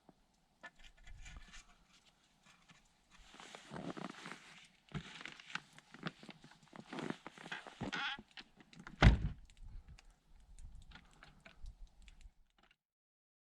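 Intermittent rustling and small knocks of something being handled, with one sharp, loud thump about nine seconds in.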